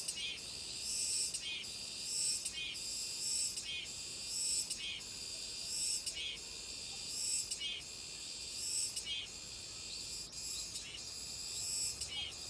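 Cicadas singing in summer: a high buzzing call that swells and repeats about once a second, each phrase ending in a short pulse, over a steady high drone.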